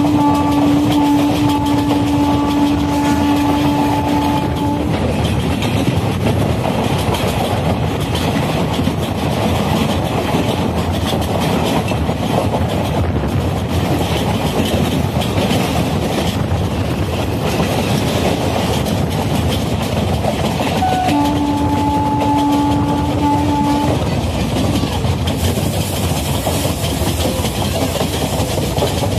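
Indian Railways express passenger train running at speed, heard from an open coach doorway: a steady rush of wheels on the rails and wind with a rattling clatter. A locomotive horn holds one long steady blast that stops about five seconds in, and sounds again for about three seconds later on.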